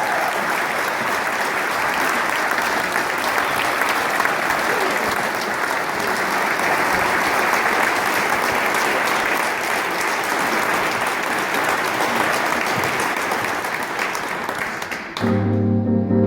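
Audience applauding steadily for about fifteen seconds. The applause then stops abruptly, and sustained instrumental chords begin.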